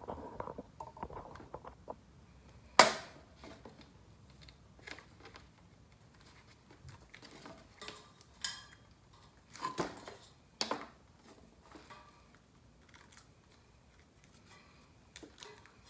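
Electrical cords and test leads being handled: rustling with scattered clicks of plastic and metal connectors, one sharp click about three seconds in and a few more clicks around ten seconds.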